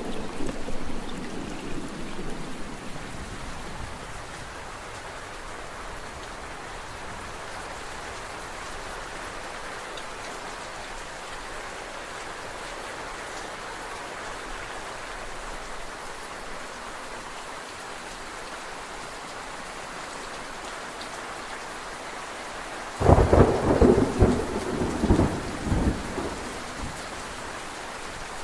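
Steady rain falling, with a thunder rumble dying away over the first few seconds. About 23 seconds in, a sudden loud peal of thunder rumbles for about three seconds.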